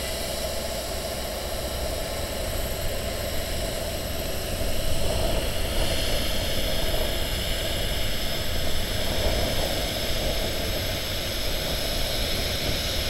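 Diesel engines of heavy road-building machinery running steadily: a low engine drone under an even hiss, growing slightly louder about a third of the way in.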